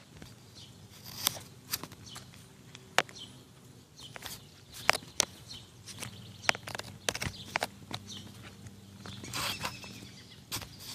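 Scattered light knocks and clicks at irregular intervals, with a brief rustle about nine seconds in.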